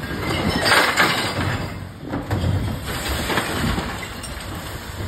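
A wheelie bin tipped by the lift of a Terberg rear-loading bin truck, its rubbish crashing out into the hopper: one loud rush about a second in, then two shorter crashes a second apart, over the truck's low running rumble.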